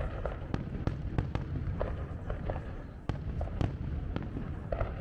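Fireworks going off: an irregular string of sharp bangs, some in quick succession, over a steady low rumble.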